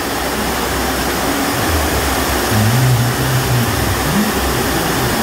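Heavy rain pounding on a corrugated sheet-metal roof, a loud steady hiss, with a low rumble swelling about two seconds in.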